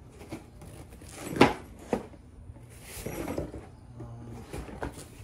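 Handling noise from a cardboard gasket box: a few knocks and rustles, the loudest about a second and a half in and a sharper click shortly after.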